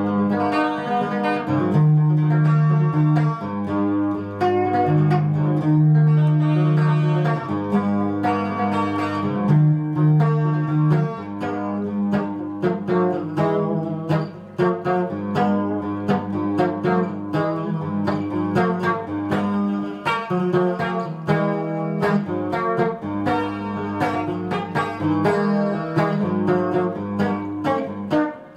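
Fender Telecaster electric guitar played fingerstyle, a picked melody over low bass notes. The notes come quicker and denser from about halfway through.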